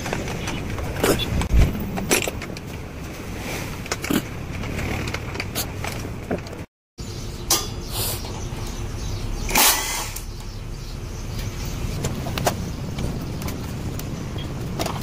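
Steady traffic noise with scattered sharp clicks and knocks, cut off briefly about seven seconds in.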